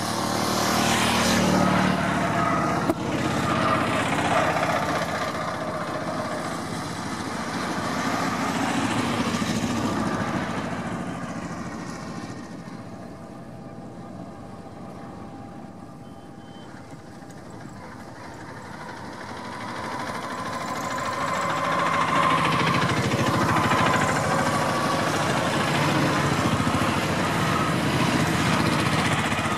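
Road traffic passing close by: vehicle engines and tyres swell and fade as they go past, with a quieter stretch of several seconds in the middle before the traffic noise builds again.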